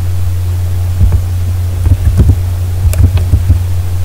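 A steady low hum runs throughout, with a scattered handful of soft clicks and knocks over it.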